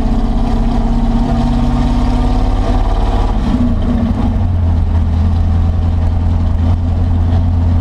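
Ford F100's NASCAR-conversion engine, heard from inside the cab through its Black Widow exhaust, running rough under way with a bad miss. Its note changes about halfway through. The misfire is the sign of an engine the driver believes he has hurt.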